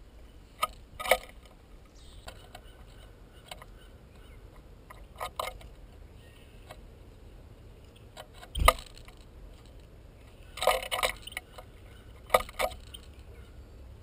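Scattered clicks and knocks at a plastic tube seed feeder as finches land on its tray and peck at the seed, with one louder thump about two-thirds of the way through and a short burst of rattling clicks soon after.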